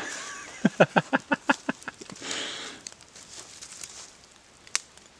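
A burst of laughter: a quick run of about eight short 'ha' pulses, ending in a breathy exhale. A single sharp click follows near the end.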